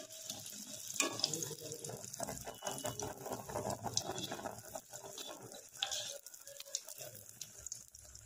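Malpua batter deep-frying in hot rice bran oil in a kadai: a steady crackling sizzle of bubbling oil. Two louder sharp clicks stand out, about a second in and near six seconds.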